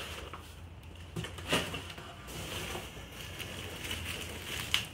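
Hands rummaging through foam packing peanuts in a cardboard box, with plastic and bubble wrap rustling. Two sharper crackles, about one and a half seconds in and near the end.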